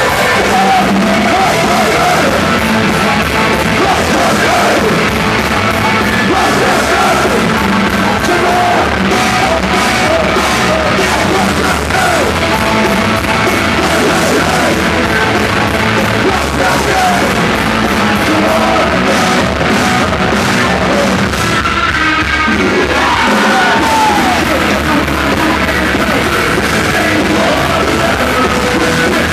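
Live loud rock band playing at full volume, with distorted guitars, drums and yelled vocals.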